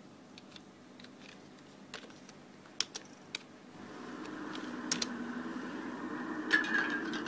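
A few separate computer keyboard keystrokes, irregularly spaced, over a low steady hum that grows louder about four seconds in.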